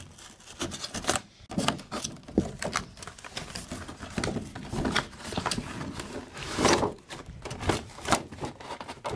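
Cardboard box with a clear plastic window being cut open and pulled apart by hand: a blade scraping along the seam, then rustling, scraping and many small clicks of cardboard and plastic, with a longer, louder scrape about two-thirds of the way through.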